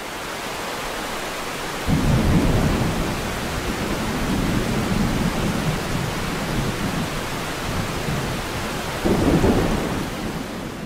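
Heavy rain that fades in at the start, with thunder: a long low rumble of thunder begins about two seconds in, and a second, louder clap comes near the end.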